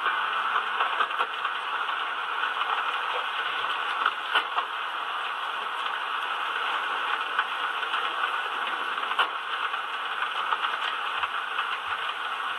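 A steady rushing noise with scattered light clicks and rattles.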